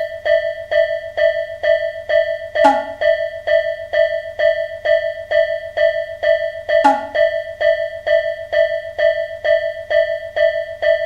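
Japanese railroad crossing warning bell (fumikiri 'kan-kan'), a synthesized bell tone striking evenly about two and a half times a second, signalling that a train is approaching. Twice, about three and seven seconds in, a short falling swoop cuts across it.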